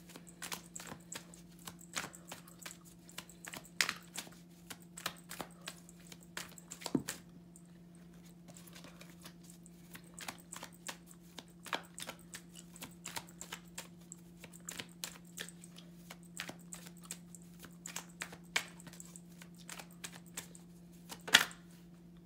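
Tarot cards being shuffled by hand: irregular light clicks and slaps of the cards, with one louder slap near the end, over a steady low hum.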